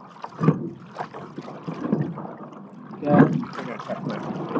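Coxed eight rowing shell paddling at light pressure: water rushing and splashing along the hull and oar blades, with a louder knock and splash at each stroke, about every two and a half seconds.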